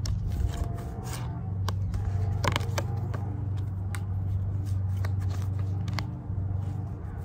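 A deck of tarot cards being handled and flipped through by hand: irregular soft slides and light clicks of flexible card stock, over a steady low hum.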